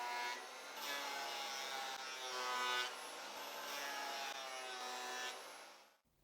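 Electric wood planer motor running as cedar boards feed through it, its pitch sagging under each cut and recovering. It cuts off suddenly near the end.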